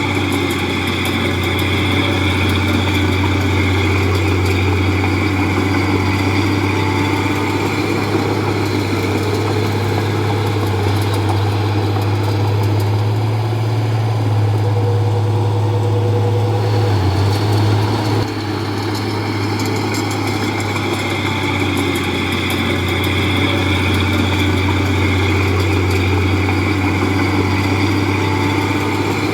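Komatsu D31P bulldozer's diesel engine running steadily with a deep, even hum; its higher whine fades for a few seconds midway and then returns.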